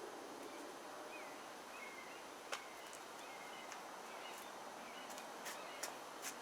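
Quiet backyard outdoor ambience: a steady low hiss with faint, short bird chirps, and a few sharp clicks, the clearest about two and a half seconds in and a small cluster near the end.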